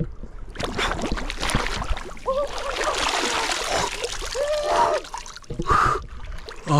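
Water splashing and churning as a person plunges into a cold mountain lake and thrashes about, with two short gasping cries.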